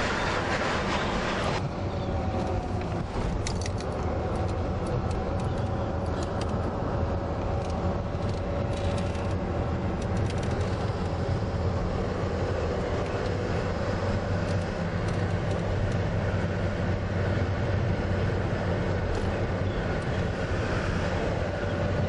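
Steady road and engine rumble heard from inside a moving car, deepest in the low end with a faint steady hum above. A higher hiss drops away about a second and a half in.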